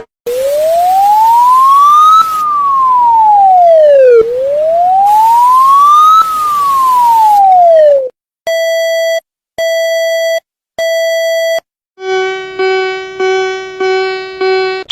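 Synthesized emergency alert tones. A wailing siren tone rises and falls slowly twice, then three long beeps sound, then a buzzy alarm tone pulses about five times.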